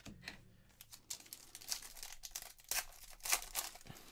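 Foil wrapper of a Panini Select basketball card pack being torn open and crinkled by hand, in a string of crackles, loudest after the middle.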